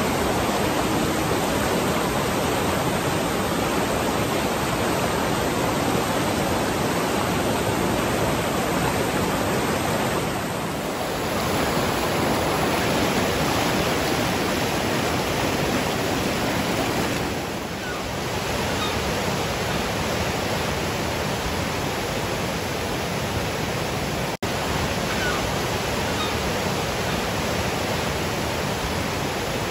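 Fast mountain river rushing over rocks in whitewater rapids: a steady, full rushing of water, with one split-second gap in the sound late on.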